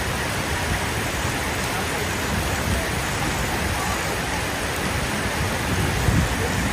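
Steady hiss of heavy rain, with the low rumble of motor traffic on a flooded street underneath.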